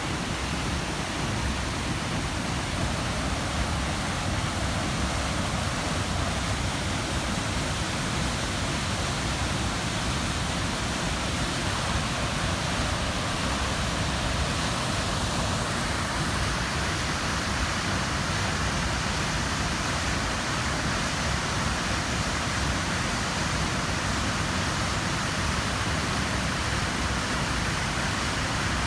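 A mountain waterfall, a whole river plunging about 7–8 m into a rock-walled pool, making a steady, unbroken rush of falling water.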